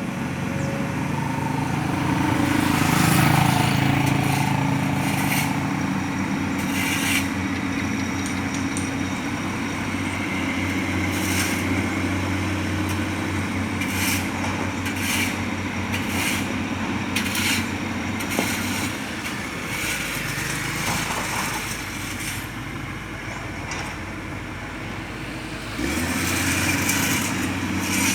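Liebherr 984 hydraulic mining excavator's diesel engine running under load, working harder about three seconds in, easing off past the middle and picking up again near the end, with scattered clanks and knocks of the machine at work.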